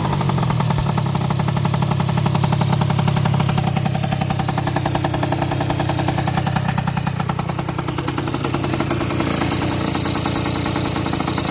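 Small two-stroke scooter engine, an MBK Nitro 50cc fitted with a freshly installed pink 'Top' liquid-cooled cylinder kit, idling with a fast, even firing beat.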